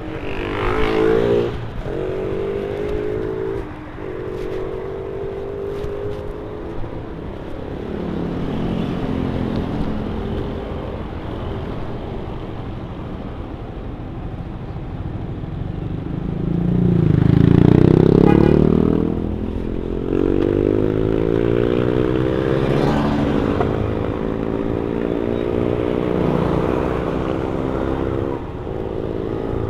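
Yamaha FZ-16's carburetted single-cylinder engine through its stock exhaust, pulling under load: the note climbs in pitch, then drops back at each gear change, several times over. A louder swell just past the middle.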